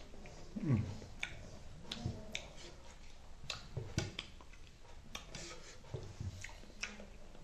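Mouth sounds of someone licking and sucking spicy chicken-wing sauce off his fingers: repeated wet lip smacks and clicks, with a few short low hums of enjoyment.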